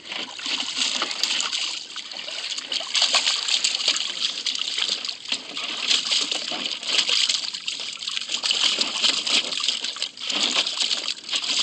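Shallow water splashing and sloshing in a plastic kiddie pool as a German shepherd puppy stands and paws about in it, with irregular splashes throughout.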